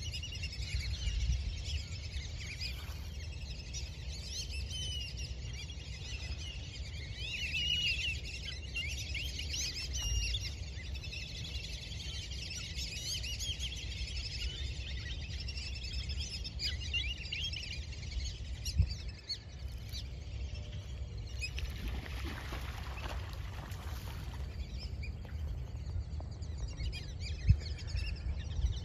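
Many birds calling: a busy chatter of short high whistles and chirps that thins out after about twenty seconds, over a steady low rumble, with a couple of sharp knocks.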